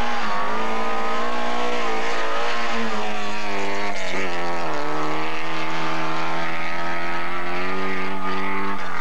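Rally car engine running hard at high revs, steady in pitch, then dropping to a lower note about four seconds in and holding there, with the pitch starting to fall again at the very end.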